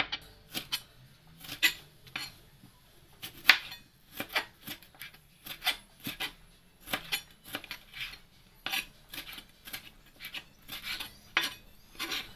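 Kitchen knife slicing tomatoes on a plastic cutting board: a string of sharp, irregular knocks as the blade cuts through and strikes the board, about one or two a second.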